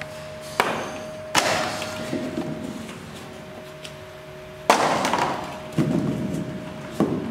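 Plastic balls hitting clear plastic cups, with the cups clattering over onto a tile floor. There are several sharp knocks, and the two loudest, about a second and a half in and near five seconds, rattle on briefly.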